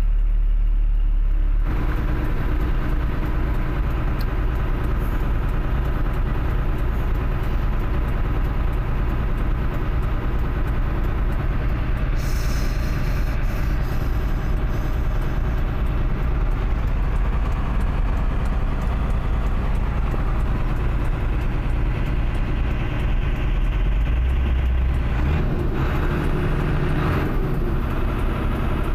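Heavy truck engine running steadily as trucks crawl through deep mud on a rutted road. About twelve seconds in there is a short hiss of mud and water spraying up, and near the end the engine gets louder as the truck pulls ahead.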